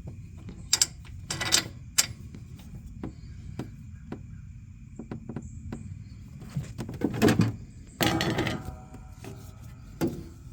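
Clicks, taps and scraping of metal mower parts being handled: pulley bolts, spacers and pulleys picked up and fitted by hand, with a few louder scrapes about a second and a half in and again near the end.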